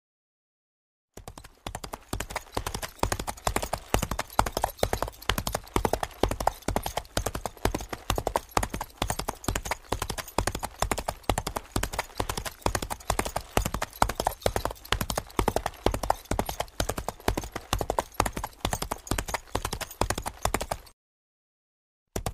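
Hoofbeats of a galloping hoofed animal: a fast, steady clatter of hooves striking hard ground, which starts about a second in, stops briefly shortly before the end and then starts again.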